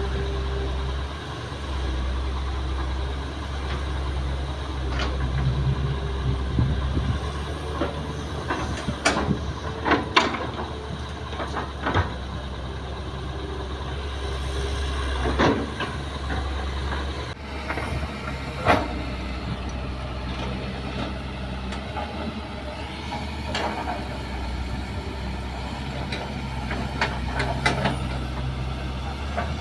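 Diesel engines of a Kobelco hydraulic excavator and dump trucks running steadily, with scattered sharp knocks and clunks as the excavator works, loudest in the middle stretch.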